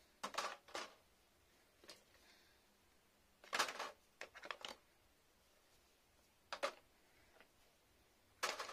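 Plastic skincare bottles and tubes being set down and shuffled into a wire-mesh drawer: a handful of short clattering knocks and rustles, the loudest cluster about halfway through.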